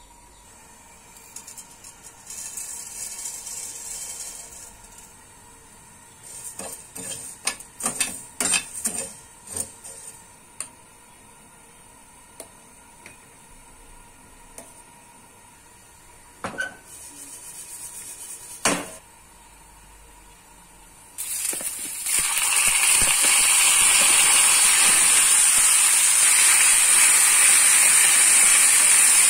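Cooking sounds at a pan or pot: a cluster of utensil clinks and knocks, two more knocks a little later, then a loud, steady sizzle that starts suddenly about twenty seconds in and keeps going.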